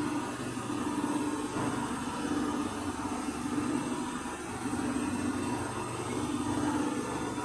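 Electrolux W555H professional washer-extractor on its high-speed final spin, around 1350 RPM: a steady hum from the spinning drum that swells and eases every couple of seconds.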